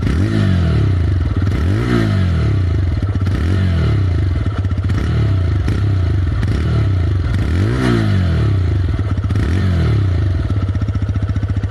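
TVS Raider 125's single-cylinder engine revved repeatedly from idle, each blip of the throttle rising and falling in pitch, heard close to the exhaust silencer. It settles back to a steady idle near the end.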